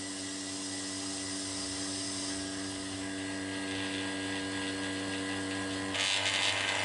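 Electric vacuum pump running with a steady hum, pulling a vacuum on a chamber where plywood soaks in stabilising resin. About six seconds in, a louder hiss joins it.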